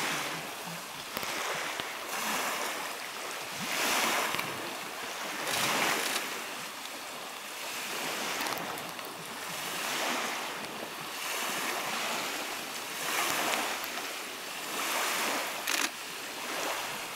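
Shallow creek water rushing and splashing as brown bear cubs wade and lunge through it after salmon, the noise swelling and easing every couple of seconds.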